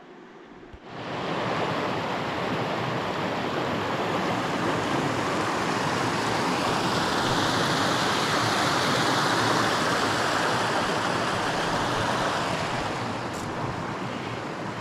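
Creek water rushing over a small rocky cascade, a steady loud rush that starts suddenly about a second in and eases slightly near the end.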